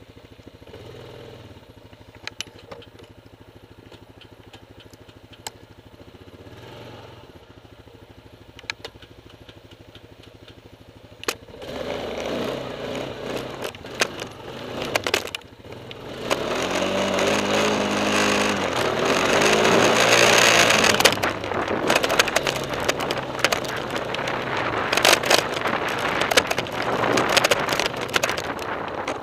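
Honda TRX420 quad's single-cylinder four-stroke engine running at low speed, then getting much louder about twelve seconds in and climbing in pitch as the quad accelerates. Frequent clicks and rattles run throughout.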